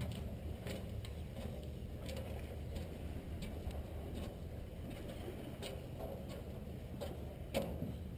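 Steady low rumble with light, irregular ticks and knocks, about one or two a second.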